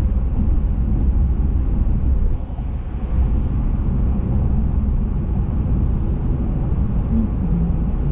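A vehicle driving: steady low engine and road rumble, dipping briefly about two and a half seconds in.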